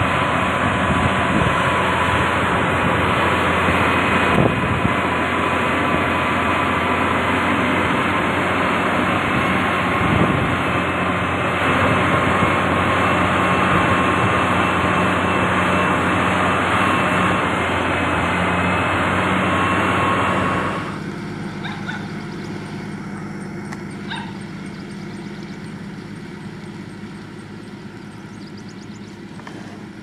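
Heavy diesel construction machinery running steadily, a constant engine drone with a hum. About twenty seconds in, the sound drops abruptly to a quieter machine drone that slowly fades.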